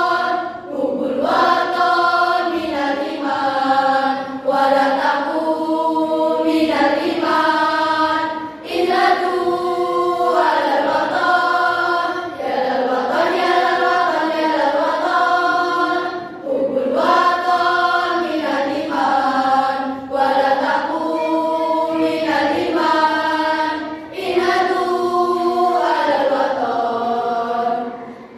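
A school choir singing unaccompanied in several parts, held notes in phrases with short pauses for breath every few seconds.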